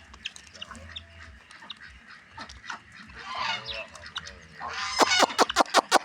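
Farmyard fowl calling: faint honking calls around the middle, then about five seconds in a turkey starts gobbling loudly, a fast rattling run of calls.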